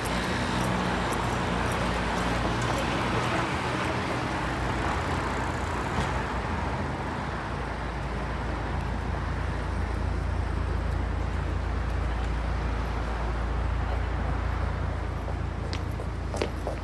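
City street ambience: steady traffic noise, with a deeper engine rumble swelling from about halfway through, and a few short clicks near the end.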